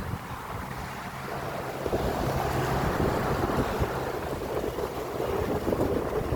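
Strong wind buffeting the microphone, a rough rumbling noise that grows a little louder about two seconds in.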